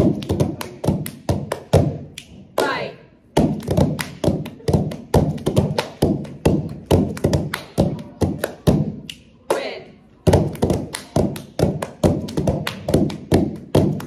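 Two people doing a rhythmic hand-clapping routine: quick claps and hand slaps at about four strokes a second, pausing briefly twice.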